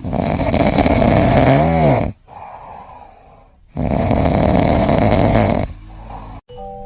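Loud snoring: two long snores of about two seconds each, with a quieter in-between breath.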